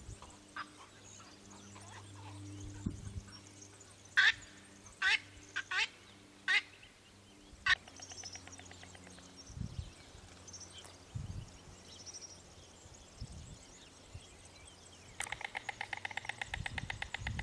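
White storks bill-clattering at the nest: a rapid, even rattle of about ten strokes a second starts near the end. Earlier, several sharp, short clicks or chirps stand out over a faint low hum.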